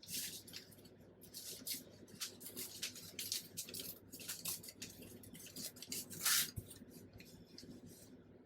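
Old book paper being handled: irregular rustles and scrapes, with a louder crinkle about six seconds in.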